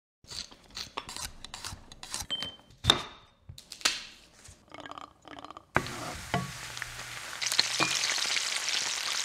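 A scatter of light knocks and taps of ingredients landing on a wooden cutting board and counter. About halfway through, it gives way to a sudden steady sizzle: shrimp and sliced garlic frying in olive oil in a cast iron skillet, louder near the end, with a few clicks of metal tongs against the pan.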